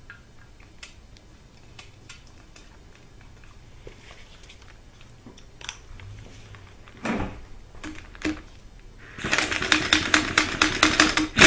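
Pneumatic impact wrench hammering on a bolt in an aluminium engine block, a fast rattle of blows for about two seconds near the end. Before it come faint clicks and a couple of knocks of parts and tools being handled.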